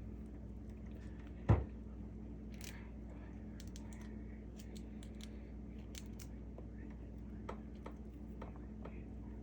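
Scattered light clicks and taps of kitchen handling, with one sharp loud knock about a second and a half in, over a steady low hum.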